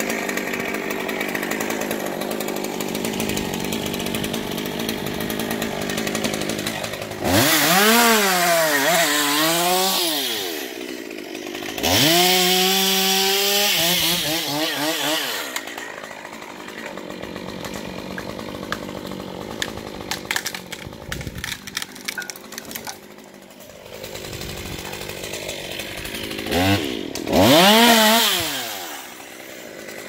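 Two-stroke chainsaw idling, then revved up and down for a few seconds and held at high revs for about three seconds. After a quieter stretch with scattered clicks, it runs steadily again and is revved once more near the end.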